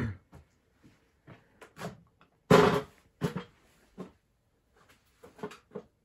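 Scattered knocks and clicks of handling, with one loud thump about two and a half seconds in.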